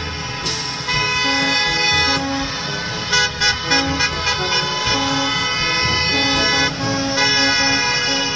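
Several school buses honking their horns as they pull away in a line, steady held blasts overlapping with shorter honks that start and stop, over the low rumble of their engines.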